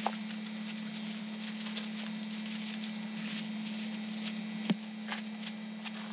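Steady low hum of a camcorder's own noise with scattered faint clicks and crackles, and one sharp click about three-quarters of the way through.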